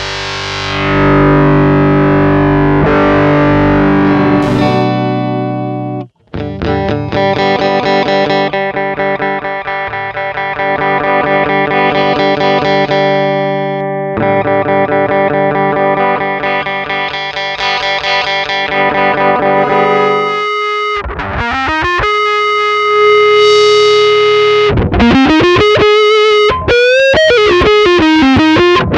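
Distorted electric guitar played straight into an audio interface through a one-knob low-pass/high-pass filter pedal used as a cabinet simulator. It plays sustained chords with a brief stop about six seconds in, then sliding and bending notes over the last several seconds.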